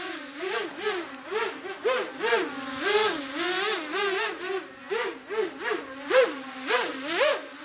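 Brushless motors and KingKong 5040 bullnose props of a 530 g quadcopter in flight, a steady hover whine rising and falling in pitch about twice a second as the throttle is blipped.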